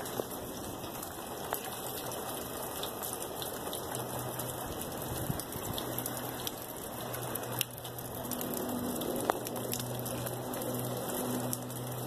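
Outdoor ambience with wet snow flurries falling: a steady hiss with many small scattered ticks. A low steady hum comes in about four seconds in and grows toward the end.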